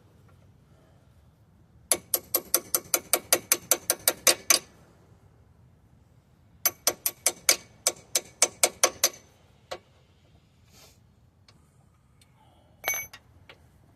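Ratchet wrench clicking quickly and evenly, about six clicks a second, in two runs of a few seconds each, while fasteners are turned on a wheel hub assembly. Near the end a single ringing clink of metal on metal.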